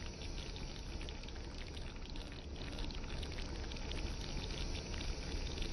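Pork menudo stew simmering in the pot: a steady, dense bubbling of many small popping bubbles.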